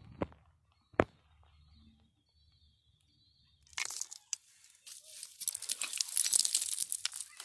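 Loose shale rubble and small rock fragments crunching and scraping as they are disturbed. There is a sharp click about a second in, then a longer run of crunching and rustling from about halfway, loudest near the end.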